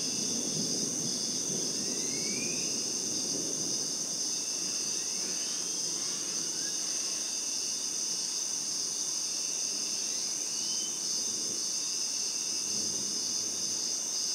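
Steady, high-pitched night insect chorus of crickets and katydids, with a few short rising calls a few seconds apart. A low rumble of distant thunder is strongest in the first few seconds and returns near the end.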